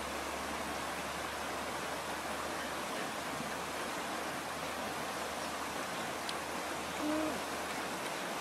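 Steady rush of a fast river with whitewater. Near the end a single short, low hoot-like tone sounds once.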